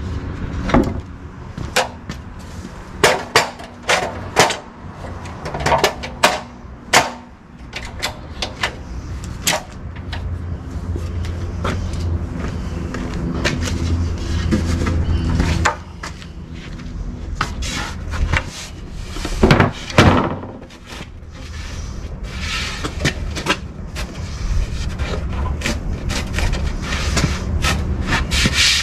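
Wooden boards knocking and clattering as they are set onto plastic-and-metal sawhorses and a pine panel is laid over them: a series of separate sharp knocks, the loudest a few seconds in and a cluster about two-thirds of the way through. A steady low hum runs underneath at times.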